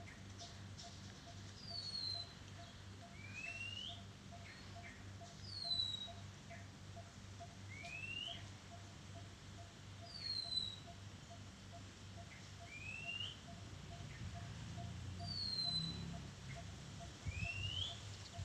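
Oriental magpie-robin singing: a clear whistled phrase of a rising note and then a high falling note, repeated about every five seconds.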